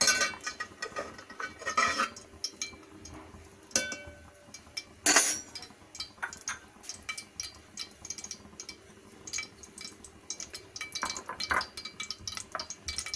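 A metal spoon clinking and scraping against a cooking pot while ghee is added and stirred, with a louder clatter about five seconds in.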